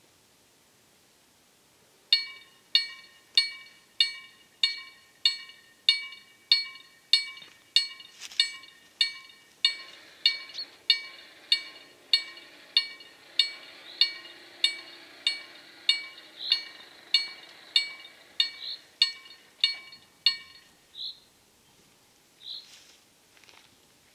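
KLD-4013 electric level-crossing bell striking rapidly and evenly, about one and a half strokes a second, each stroke ringing on. It stops about 20 seconds in. From about ten seconds in, the JEGD-50 barrier drives add a faint low hum as they lower the gates.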